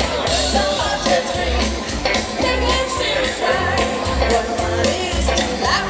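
Live band playing amplified pop-rock through a PA, with a lead singer over a steady drum beat and bass, heard from among an outdoor crowd.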